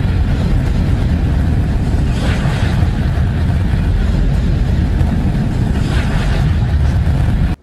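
Space-ambience sonification presented as a moon's 'sound': a loud, steady, deep rumbling noise with a fainter hiss that swells about every four seconds.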